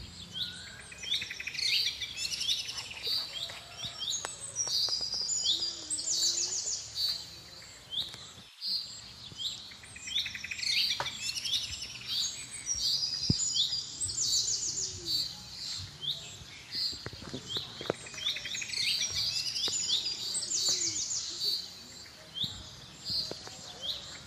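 Several birds chirping continuously in quick, overlapping high chirps.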